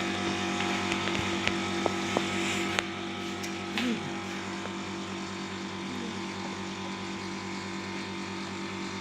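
Steady low mechanical hum, like a small electric motor running, with a few sharp clicks in the first three seconds; the hum drops slightly in level about three seconds in.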